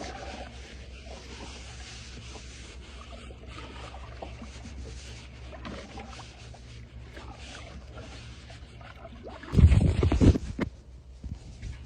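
Faint knocks and rubbing of fishing gear being handled in a kayak, over a steady low hum. Near the end comes a loud, low, rumbling burst lasting about a second, then a few sharp clicks.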